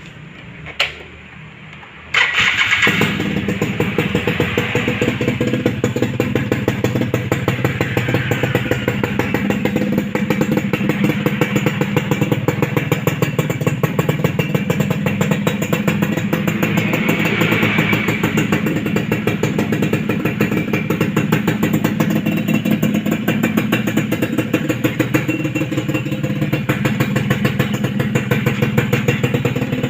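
A Suzuki Tornado GS SE motorcycle's small single-cylinder two-stroke engine starts about two seconds in and keeps running with a rapid, even exhaust pulse. A single click comes just before it starts.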